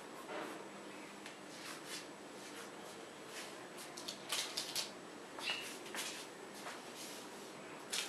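Light clicks and taps of small objects being handled, over a faint steady hiss, with a quick cluster of clicks about halfway through.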